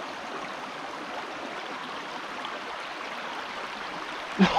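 Small creek water running and babbling steadily.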